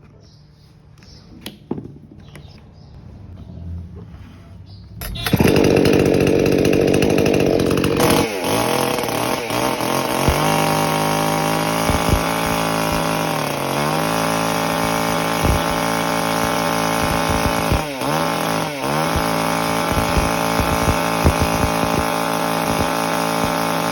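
58cc two-stroke chainsaw starting about five seconds in after a few faint clicks, then running loudly, its pitch dropping and rising again several times as the throttle is eased and opened.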